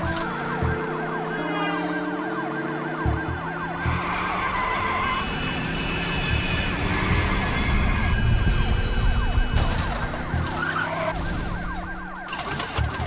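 Police car sirens wailing in a fast, repeating rise and fall, over the noise of the chasing cars.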